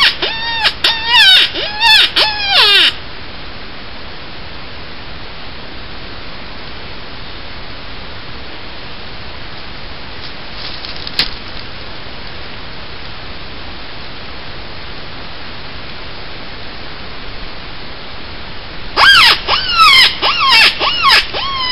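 Predator call sounding loud, rapidly repeated squealing cries that fall sharply in pitch, used to lure coyotes in. The cries stop about three seconds in, leaving a steady hiss with one sharp click, and start again about nineteen seconds in.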